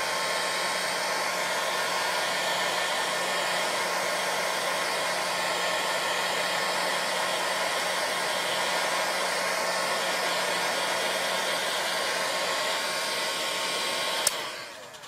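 Craft heat tool blowing steadily over painted card, drying the paint on the crackle medium to speed up the crackling. A steady rush of air with a faint low hum beneath it, switched off with a click about a second before the end.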